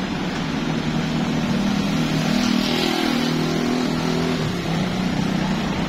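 Rear-loading garbage truck's engine running close by, running louder with a stronger hum for about three seconds in the middle before easing back.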